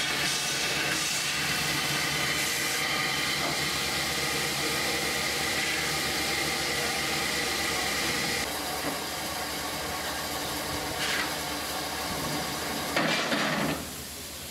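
Steady hiss of escaping steam from Southern B 473, an LB&SCR E4 0-6-2 tank steam locomotive, easing a little about eight seconds in. There is a short louder burst of steam near the end.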